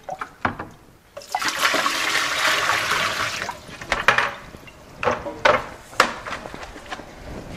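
Seed rinse water poured out of a plastic bucket into a sink, a rush of water lasting about two seconds. It is followed by several sharp knocks of the plastic bucket being handled, then water running into the bucket over a mesh bag of seeds near the end.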